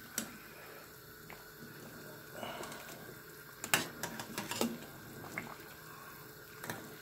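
Large stainless-steel stockpot of chicken stock bubbling at a steady boil. A little after halfway there are a few sharp knocks as a metal ladle goes into the pot and strikes it, with one more knock near the end.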